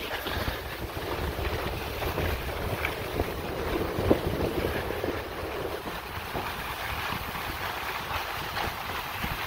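Wind buffeting the microphone over the hiss and scrape of skis sliding on packed snow, with one sharp click about four seconds in.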